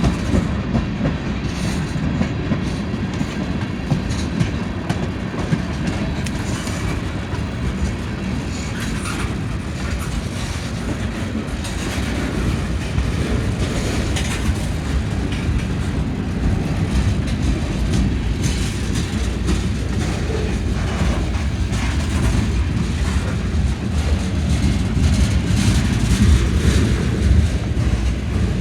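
Freight train cars rolling past, their steel wheels clacking over rail joints with a steady rumble.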